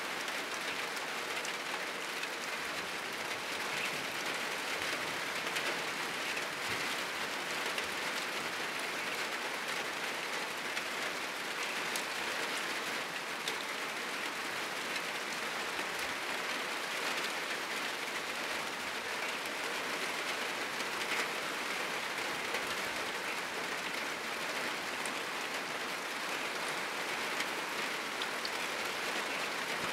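Heavy rain falling steadily on a roof: an even hiss with individual drops ticking through it.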